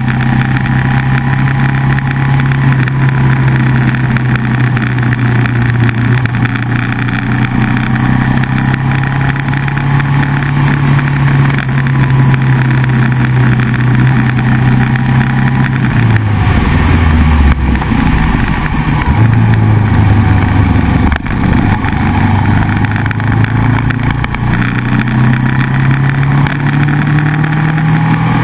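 Motorcycle engine running at road speed with a steady rush of wind and road noise. About halfway through, the engine note drops as the bike slows for a bend, then climbs back as it accelerates away.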